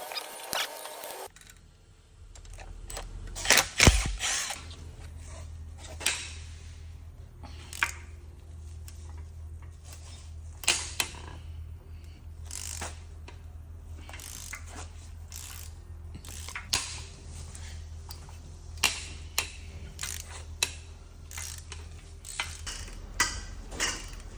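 Scattered metal clinks and knocks of hand tools and engine parts being handled during an engine teardown, over a steady low hum.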